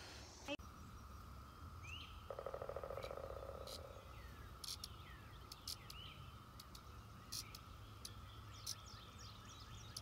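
Faint rural outdoor ambience: scattered bird chirps and sharp chips over a steady, faint high hum. A short pulsing trill sounds about two seconds in.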